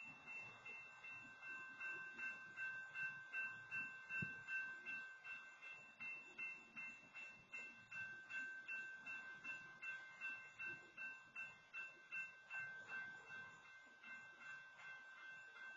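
Railroad crossing bell ringing steadily, about two strokes a second, kept ringing by a stopped freight train occupying the crossing.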